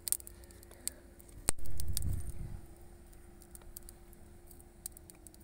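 Wood fire crackling in an open clay chulha, a scatter of small sharp pops. About one and a half seconds in there is one sharp crack, followed by a brief low rumble that is the loudest thing heard.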